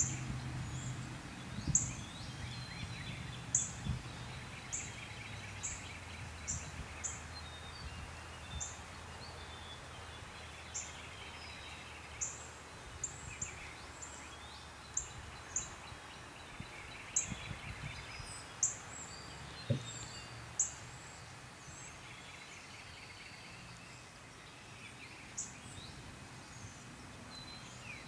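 Outdoor ambience of small birds chirping: many short, very high, downward chirps at irregular intervals, with a buzzy trill returning every few seconds. A low hum underneath fades out over the first several seconds.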